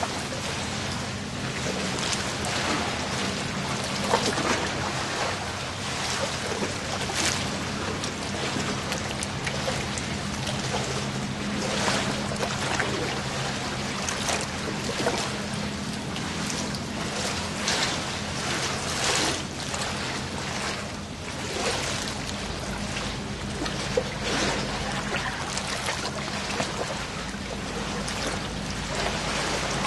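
Steady low hum under a constant rushing noise, with frequent short clicks and knocks; the hum fades about two-thirds of the way through.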